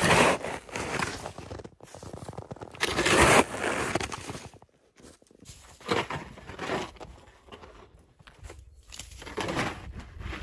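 Snow shovel strokes: the blade cutting into and scraping through crusty snow with a crunching scrape, several separate strokes with pauses between, the loudest about three seconds in. Later strokes scrape the blade along the path under the snow.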